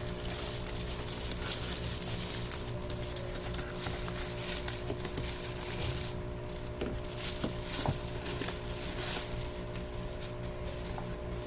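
Packaging being handled and opened: irregular rustling and crinkling of plastic and cardboard, over a steady low hum.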